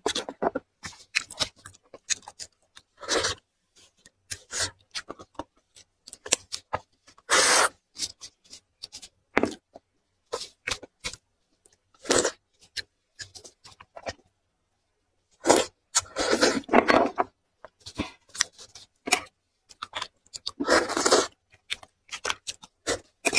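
Close-miked eating of braised marrow bones: wet chewing, lip smacks and meat being torn from the bone, in short irregular clicks with a few longer noisy bursts.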